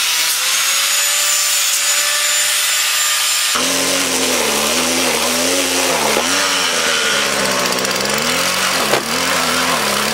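An angle grinder cutting metal with a steady high whine. About three and a half seconds in, it gives way abruptly to a petrol string trimmer engine running, its pitch repeatedly rising and falling with the throttle, while the disc on its shaft churns and splashes water in a tub.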